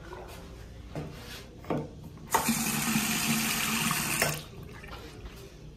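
Bathroom sink faucet running, water splashing into the basin and drain for about two seconds, then shut off sharply. Two light knocks come just before it.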